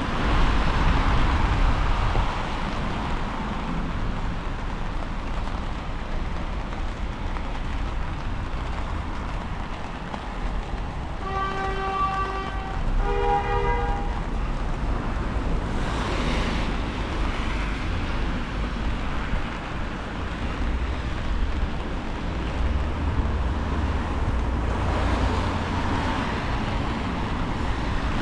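Wind buffeting the microphone with a steady low rumble, under the hiss of passing traffic that swells and fades a few times. About halfway through, a brief two-note pitched tone sounds, the second note slightly higher, each lasting about a second.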